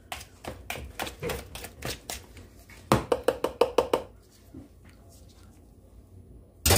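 A utensil clicking and scraping against a ceramic mixing bowl in quick repeated strokes as mashed banana is stirred, stopping about four seconds in. A single sharp knock comes near the end.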